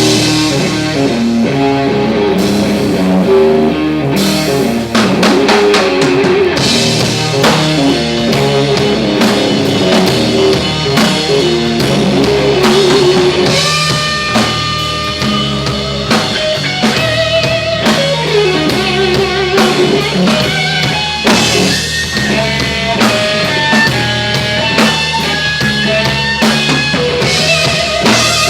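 Live blues rock band playing: drum kit, bass and electric guitar. Held, wavering melody notes come in over the band about halfway through.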